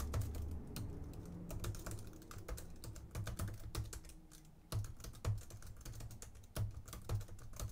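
Computer keyboard typing: quick, irregular keystrokes, with a short pause a little past halfway before the keystrokes resume.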